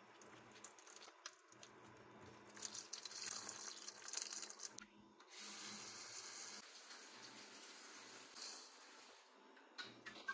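Tap water running into a sink, faint and steady, starting about two and a half seconds in, breaking off briefly around five seconds, then running again until it stops near the end.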